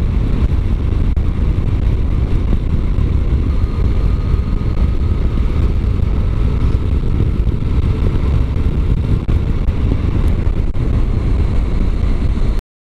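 Riding wind buffeting a chest-mounted GoPro on a Yamaha MT-09 Tracer at road speed, with the bike's three-cylinder engine running steadily underneath. The sound cuts off suddenly near the end.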